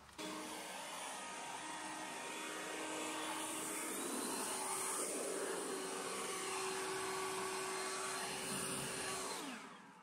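Cordless leaf blower running steadily at full speed, blowing air across a wet jet ski hull; it starts abruptly and winds down with a falling whine near the end.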